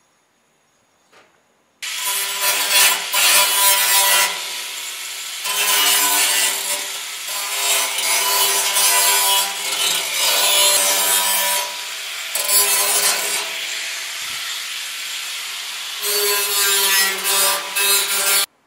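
Electric angle grinder smoothing the cut edges of a steel drum barrel. It comes in about two seconds in with a steady high whine and gritty hiss that swell louder each time the disc bears on the metal and ease between passes, then cuts off abruptly near the end.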